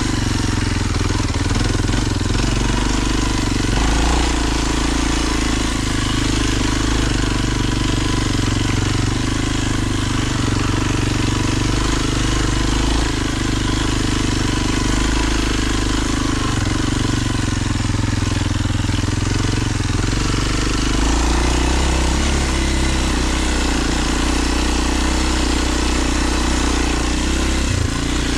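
Kawasaki KLX 230's single-cylinder four-stroke engine running at low, steady speed as the dual-sport bike rides a dirt trail. The engine note shifts a couple of times, about four seconds in and again past the middle.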